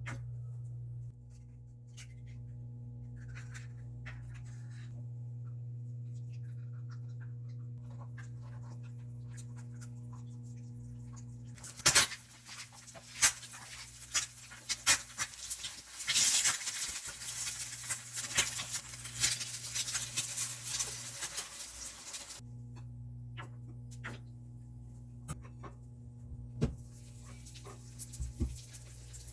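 Kitchen food-prep sounds over a steady low hum: scattered light clicks and knocks. Partway through comes a stretch of about ten seconds of hissing, crackling noise with sharp knocks.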